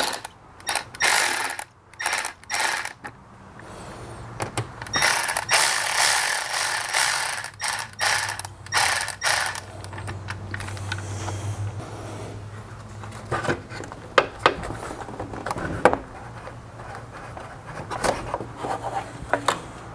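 Ratchet wrench with an 8 mm socket clicking in quick runs as it loosens worm-gear hose clamps on an engine intake pipe. The runs are dense for the first half, then give way to a few scattered clicks.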